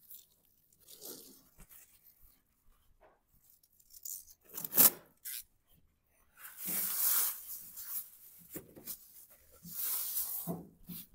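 Pre-taped masking film pulled off its roll and its thin plastic sheeting crinkling as it is unfolded and spread, in separate bursts: a short sharp rip about five seconds in, then longer rustling stretches around seven and ten seconds.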